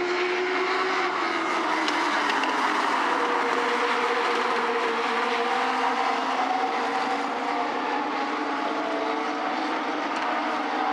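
Legends race cars' motorcycle-derived four-cylinder engines running as the cars lap the track. The engine notes hold fairly steady and drift slowly up and down in pitch, with no hard revving.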